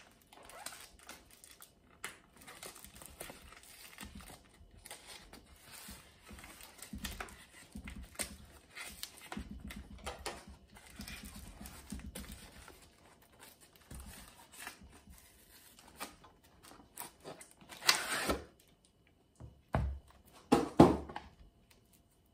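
Cardboard parcel being unpacked by hand: packing tape slit with a knife and torn, and cardboard rustling, with many small clicks and scrapes. There are louder crinkling rustles near the end as the boxed item is pulled out.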